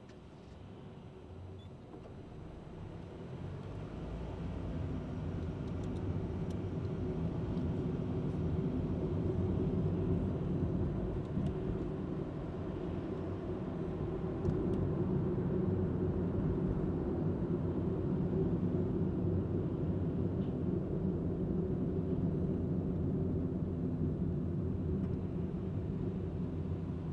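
Car interior driving noise: a low rumble of engine and tyres that swells over the first several seconds as the car pulls away from a stop and gets up to speed, then holds steady while cruising.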